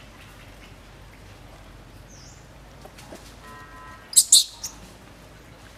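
Two short, sharp high-pitched chirps a little after four seconds in, the loudest sound, followed by a fainter third, over a faint steady background; a softer short chirp comes about two seconds in.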